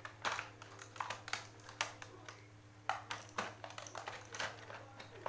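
Plastic toy packaging and small toy pieces being handled, giving irregular crinkles and clicks, several a second, over a faint steady hum.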